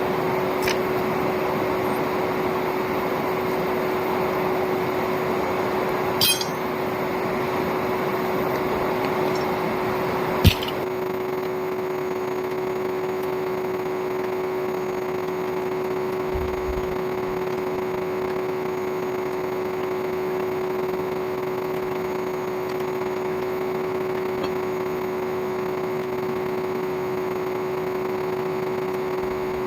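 Old vacuum cleaner motor running steadily as the air blower for a coal forge: a constant whirring hum with one steady tone. A few sharp clinks break in, the loudest about ten seconds in.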